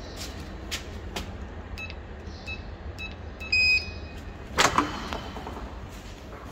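Several short electronic beeps and then one longer, louder beep, followed by two sharp bangs close together, over a steady low hum. The bangs fit a door banging shut.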